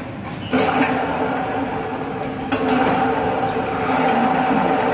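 Electric floor grinder's motor switched on about half a second in and running with a steady hum during a repair test, the grinding head tilted up off the concrete. A couple of clacks come as it starts, and it grows louder about two and a half seconds in.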